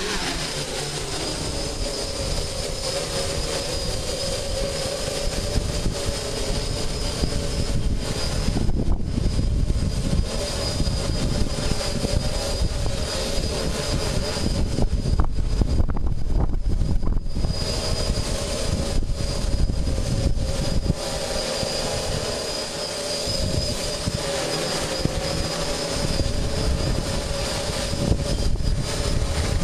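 DJI F550 hexacopter's six electric motors and propellers humming steadily in flight, with heavy wind buffeting the microphone.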